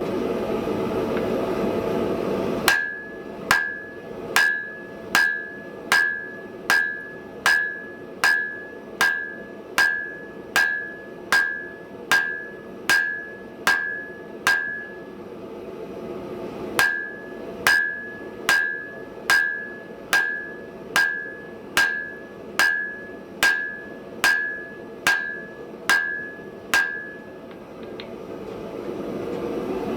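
A hand hammer strikes hot round steel bar on an anvil in a steady rhythm, about one blow every 0.8 seconds, and each blow rings. There are two runs of blows with a short pause between them. A steady rushing noise comes before the first run and after the last.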